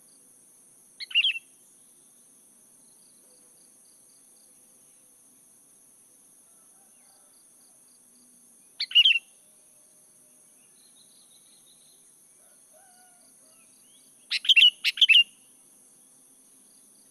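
Sooty-headed bulbul (kutilang) giving short, loud calls: one about a second in, another near the middle, and a quick run of three near the end. A steady high insect buzz runs underneath.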